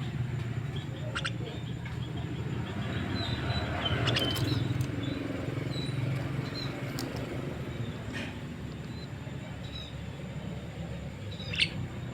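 Jalak (myna) bird calling: short high chirps and several sharp clicking notes, the loudest near the end, over a steady low background rumble.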